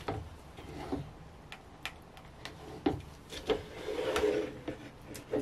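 Plastic measuring jugs knocking and clicking on a wooden worktop, with a silicone spatula scraping around inside a jug as soap batter is stirred about three and a half seconds in.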